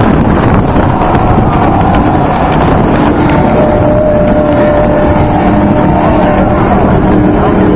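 Off-road race truck engines running hard as trucks race by, the engine notes holding and then dropping away, over a dense, loud rush of noise.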